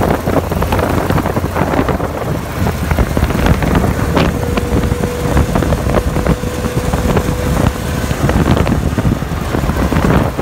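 Open-top off-road buggy driving on a gravel dirt road: the engine runs under wind buffeting the microphone, with tyres crunching and the body rattling. A thin steady tone comes in for a few seconds in the middle.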